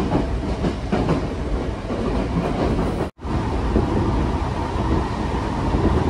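Electric commuter train running, heard from inside the passenger car: a steady rumble with the clickety-clack of wheels over rail joints. The sound cuts out for a split second near the middle.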